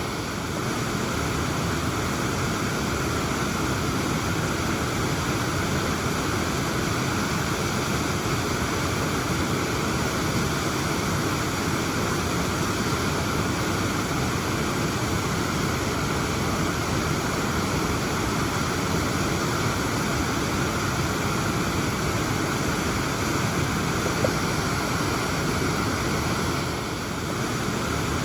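Waterfall rushing: a steady, full roar of falling water that never lets up, with only a slight dip in level twice.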